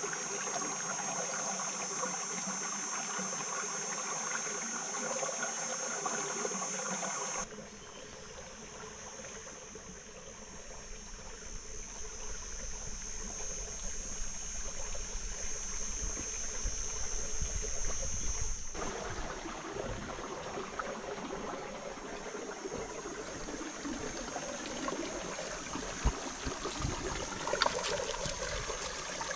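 Forest river ambience: water trickling under a steady high insect drone. The sound changes abruptly twice, about a quarter and about two-thirds of the way through, and a couple of light knocks come near the end.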